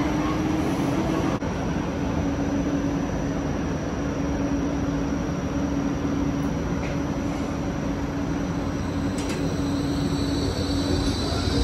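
G:link light rail trams at a platform: a steady hum and low rumble from the trams' running equipment. Near the end a high-pitched wheel squeal starts as a tram begins to move.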